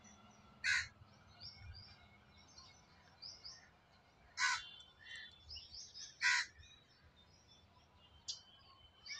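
Crows cawing: three loud, harsh caws about a second, four and a half and six seconds in, and a shorter one near the end, with smaller birds chirping softly in between.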